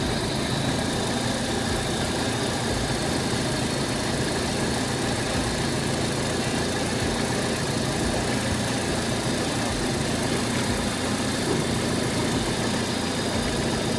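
Honda Civic's four-cylinder engine idling steadily, left running after a radiator refill so the coolant circulates and trapped air bleeds out of the cooling system.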